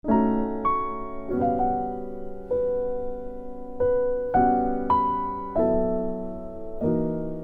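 Background piano music: a slow, gentle melody over chords, the notes struck about once or twice a second and left to ring out. It starts abruptly out of silence.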